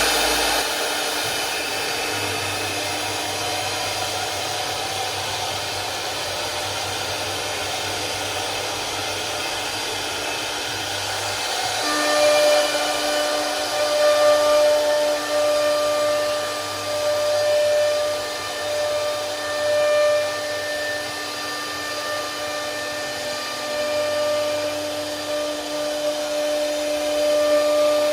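CNC router spindle running as it carves wood, a steady hissing whine. About twelve seconds in a clearer whine sets in and the level starts rising and falling as the cut goes on.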